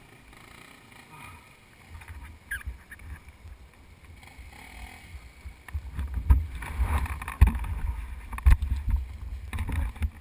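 Muffled low rumble and several dull knocks on a GoPro's microphone, growing louder about six seconds in.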